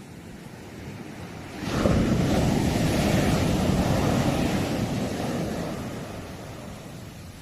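Sea wave breaking on the shore: a sudden rush of surf a little under two seconds in, loudest for a couple of seconds, then slowly fading as it washes out.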